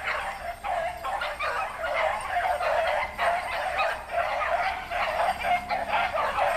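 A pack of rabbit hounds baying on a rabbit's trail, many short overlapping barks several a second, several dogs voicing at once.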